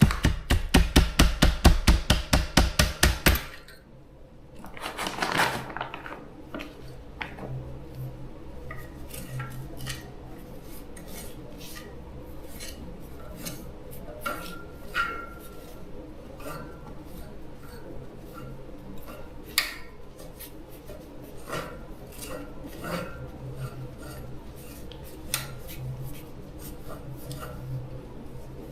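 Metal fan parts being worked and handled: a quick run of rhythmic strokes, about five a second, for the first few seconds, then scattered light metallic clinks and taps.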